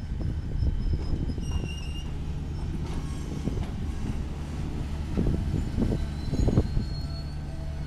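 Freight train's refrigerated boxcars rolling past: a steady low rumble and drone of wheels on rail, with a few clanks about five to six and a half seconds in and faint, brief wheel squeals.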